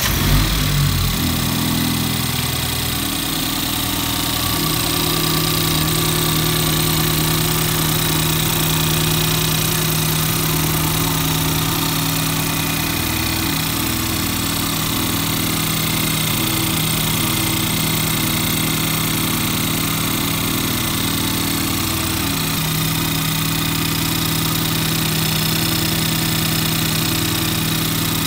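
Ford Fiesta ST180's turbocharged 1.6-litre EcoBoost four-cylinder just after its first start on a new stainless tubular exhaust manifold. It settles from a brief flare into a steady idle, heard from the open engine bay, with no exhaust leaks.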